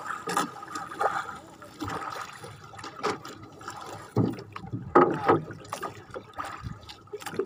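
Sea water slapping and lapping against the hull of a small wooden outrigger boat, with several sharp knocks on the boat scattered through, the loudest about five seconds in.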